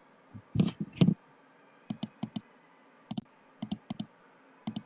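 Irregular sharp clicks of keys or buttons being pressed, with two duller knocks about half a second and a second in. These are the presses of setting a device to full volume and starting playback.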